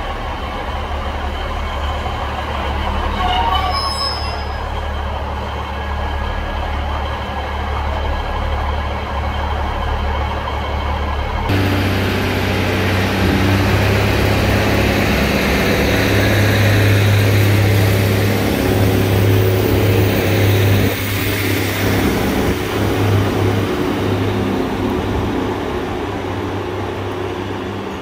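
Class 156 Super Sprinter diesel multiple unit, its Cummins underfloor diesel engines running at a steady idle. About eleven seconds in they throttle up abruptly to a louder, rougher note under power. The sound swells for several seconds, then eases slightly near the end.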